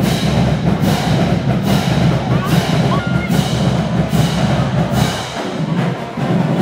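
Marching-band drums beating a steady cadence, about one stroke every eight-tenths of a second, over the noise of a large crowd.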